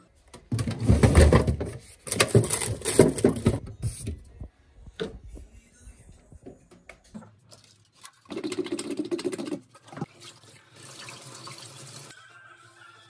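Household chores: loud rustling and handling of clothes for the first few seconds, then scattered knocks, and a kitchen tap running into a stainless-steel sink near the end.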